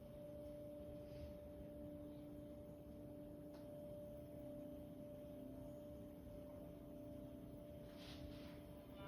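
Crystal singing bowls ringing faintly, two steady tones held on with one an octave above the other.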